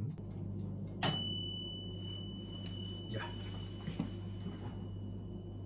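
Countertop toaster oven's timer bell dings once about a second in and rings on for several seconds, signalling that the baking time is up. A low steady hum and a few soft handling knocks run underneath.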